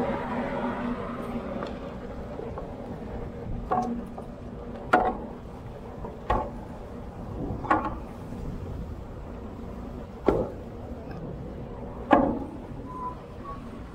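Knocks of a rope pilot ladder's wooden steps as a person climbs down it against a steel ship's hull: about six sharp, briefly ringing knocks, one every one to two and a half seconds, over a steady low rumble.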